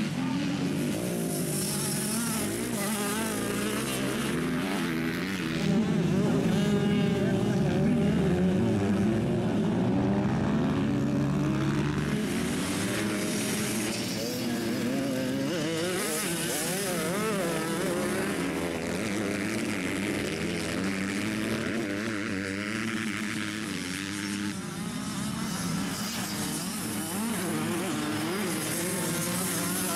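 Several 85cc two-stroke motocross bikes racing on a dirt track, their engines revving up and down over and over as the riders work the throttle. The sound grows louder about six seconds in.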